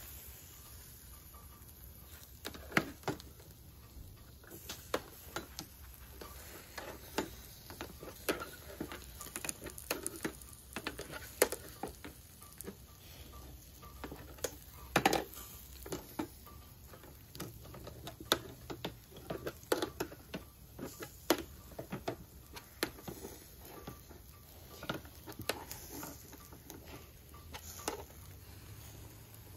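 Kabobs on metal skewers grilling over a bed of charcoal, crackling and popping irregularly, with a few louder sharp pops among many small ones.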